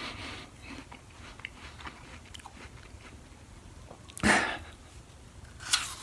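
A person chewing a mouthful of crisp Cosmic Crisp apple with soft, faint crunches, then biting crisply into a fresh slice near the end. A short, louder rush of sound comes about four seconds in.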